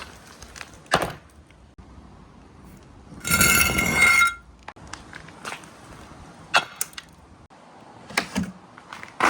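Marbles running down a marble run's slopes: scattered clicks and knocks as they drop and strike the track, with a louder clattering, slightly ringing run of about a second, about three seconds in.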